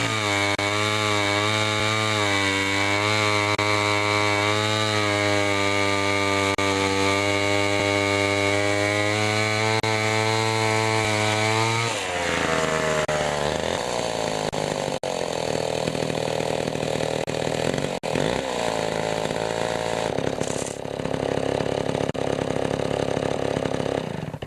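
Vintage Homelite C9 two-stroke chainsaw engine running at a steady speed, then dropping to a lower, wavering idle about halfway through, and shutting off near the end. The owner thinks the carburettor may need a rebuild kit.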